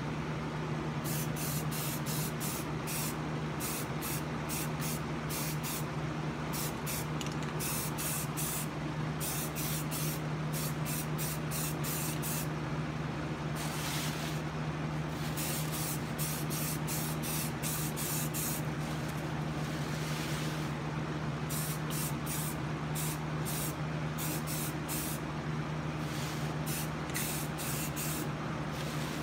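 Aerosol rattle can of primer spraying in many short hissing bursts, with a longer burst about halfway through, over a steady low hum.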